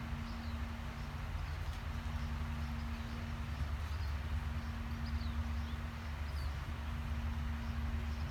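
Outdoor ambience: a steady low rumble with a constant hum, and a few short, faint bird chirps scattered throughout.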